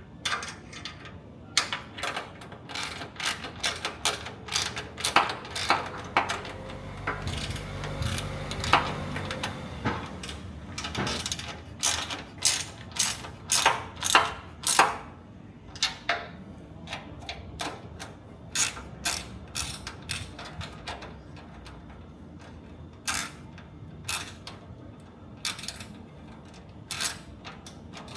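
Socket ratchet clicking in quick runs as the bolts of a steel roof rack are nipped up with a 10mm socket.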